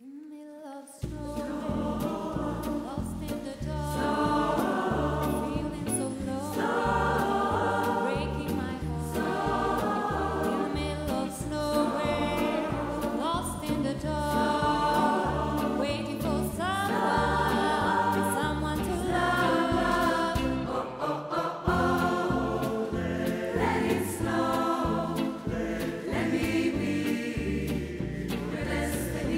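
Live music starting about a second in: a woman soloist sings a slow melody into a handheld microphone over band accompaniment with a stepping low bass line, and the mixed SATB choir sings along behind her.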